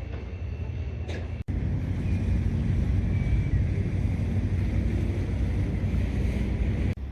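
Steady low rumble of outdoor ambience, broken by a brief dropout about a second and a half in and again near the end, where the footage is cut.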